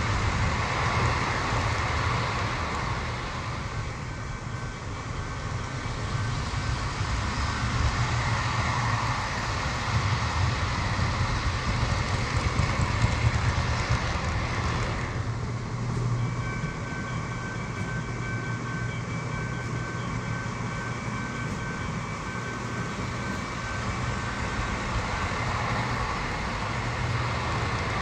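O gauge model passenger train rolling past close by: a continuous rumble and clatter of its wheels on the rails, with a low steady hum underneath.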